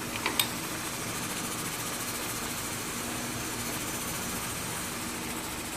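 Steady hum and hiss of a kitchen stove area, with pots boiling on the gas burners, with a light clink about half a second in.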